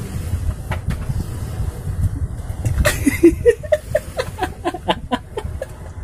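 Two men laughing in quick short bursts starting about three seconds in, over a steady low rumble.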